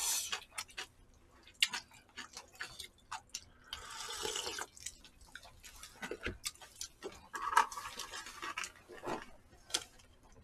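Eating sounds from close to the microphone: scattered mouth clicks and smacks while chewing, with two longer slurps of noodles, one about four seconds in and one around eight seconds.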